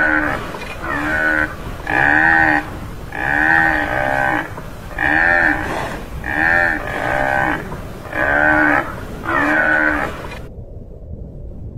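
Tamaraw (Mindoro dwarf buffalo) calling: short moo-like calls repeated about once a second, each rising then falling in pitch, with a pause of a couple of seconds near the end.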